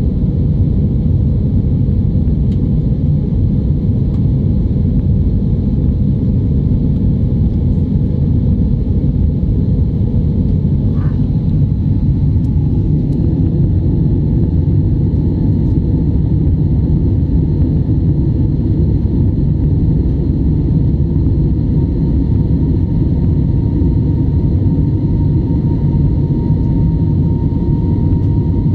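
Cabin noise of an Air Arabia Airbus A320 climbing after takeoff, heard from a window seat: a loud, steady jet-engine and airflow rumble, with a faint whine that grows stronger over the last few seconds.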